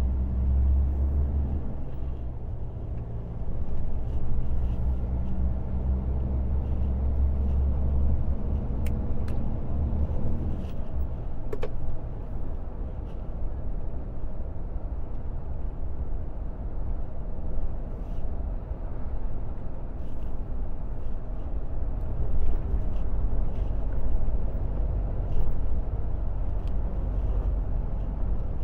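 Iveco truck's diesel engine and tyre noise heard from inside the cab while driving: a steady low drone, with a deeper engine hum for the first ten seconds or so that then settles into a smoother rumble, and a few light clicks.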